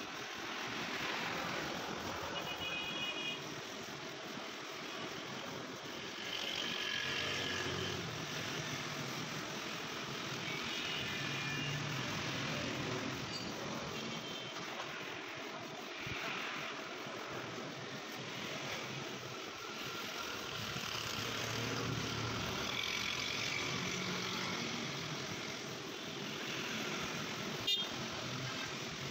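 Steady street traffic noise, with a few brief high-pitched tones through it and one sharp click near the end.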